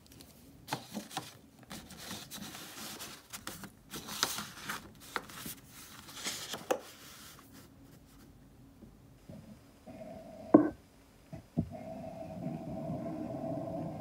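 Sheets of construction paper and a cut-out paper template being shifted and laid flat, with short rustles and taps through the first seven seconds and a sharp louder scrape about ten and a half seconds in. From about twelve seconds in comes a steadier scratching as a marker traces around the template.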